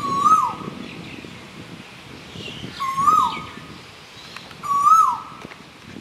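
Male Asian koel calling: three short 'ko-el' calls about two seconds apart, each note rising slightly and then falling away sharply.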